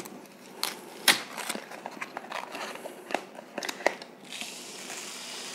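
Coarse sea salt crunching and crackling in a plastic tub as it is poured and spread over a chicken breast, in irregular clicks and crackles, giving way to a steady soft hiss about four seconds in.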